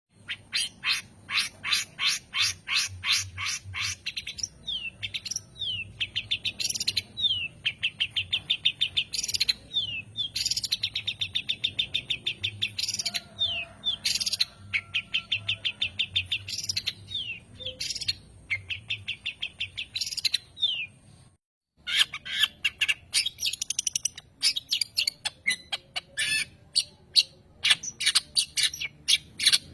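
Long-tailed shrike singing in varied phrases. It starts with sharp repeated notes at about three a second, then gives long, fast rattling trills broken by short downward-sliding whistles. The song breaks off briefly about two-thirds of the way through, then returns as more sharp notes.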